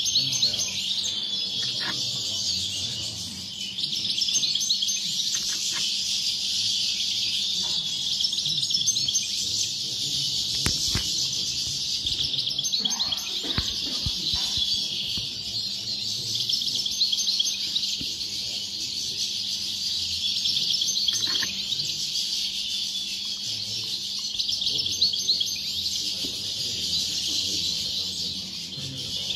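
Several caged European goldfinches singing at once, a dense, unbroken twittering chorus.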